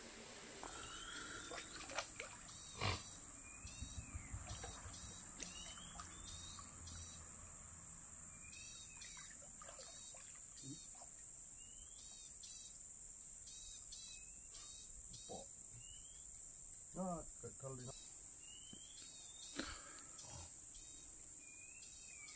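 Rainforest ambience: a steady high insect drone under many short, repeated chirping calls, with a few sharp knocks, the loudest about three seconds in.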